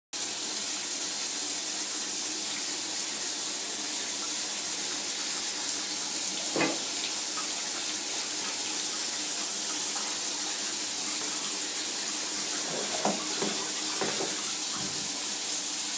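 Shower water running steadily and spraying into a bathtub, with a few brief faint sounds about six and a half seconds in and again near the end.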